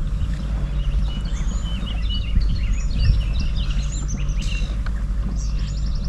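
Several songbirds chirping and singing in quick short notes, busiest in the middle, over a steady low rumble.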